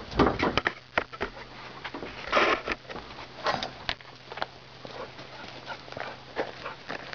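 A dog sniffing and breathing close to the microphone, among irregular clicks and scuffs that are densest in the first second. A faint steady low hum runs underneath.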